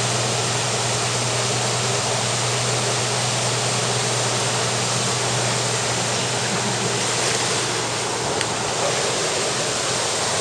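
Water pouring over a small weir into the pool below, a steady rush of white water.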